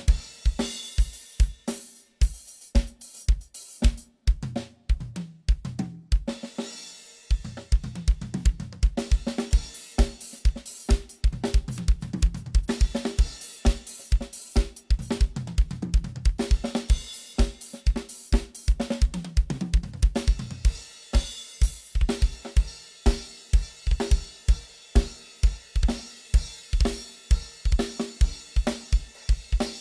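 Drum kit played in a steady groove: bass drum on a regular beat under snare, hi-hat and cymbals. About seven seconds in, the bass drum drops out briefly before the beat picks up again.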